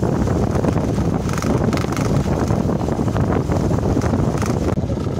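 Wind buffeting the microphone on a moving motorcycle, with the motorcycle engine running underneath. Near the end the sound cuts abruptly to a duller, quieter rush.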